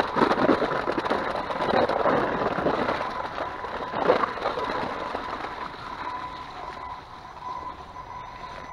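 Kona mountain bike rolling over a bumpy, snow-dusted grass trail: tyre noise with the rattle and clatter of the bike over the ground, including a hard jolt about four seconds in. It grows quieter over the last few seconds.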